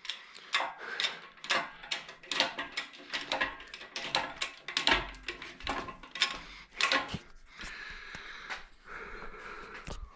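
Irregular metallic clanks, knocks and clicks of tools and parts being handled and moved around, with a sharper rattling cluster about two and a half seconds in and a longer scraping rumble around five seconds in.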